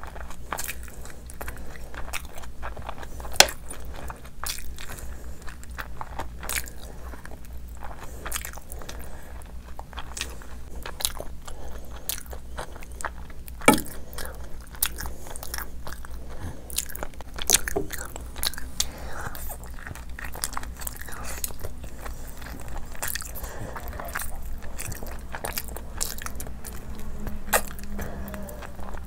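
Close-miked mukbang eating: wet chewing and smacking, with biting and crunching into curried meat on the bone. Sharp clicks are scattered throughout, a few of them louder, over a steady low hum.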